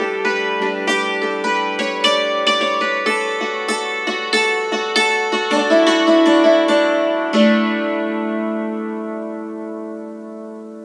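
Hammered dulcimer being played: a quick run of struck notes that ring on over one another, then a last chord about seven seconds in that rings and slowly fades away.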